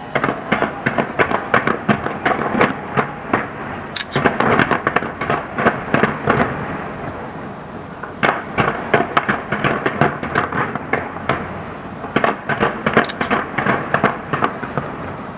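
New Year aerial fireworks bursting in rapid, dense volleys, many cracks and bangs overlapping. The volleys ease off briefly about halfway through and again near the end, then build again.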